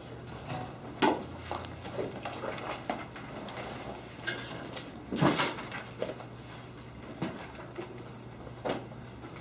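Classroom room noise while students work quietly: a steady low hum with scattered small knocks, clicks and rustles, the loudest about five seconds in.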